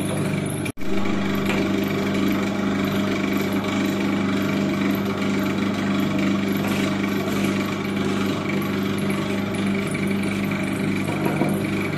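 Electric-motor stirring machine for dodol running steadily, its paddle turning through a pan of thick crumbly mixture, a constant mechanical hum. The sound cuts out for an instant under a second in.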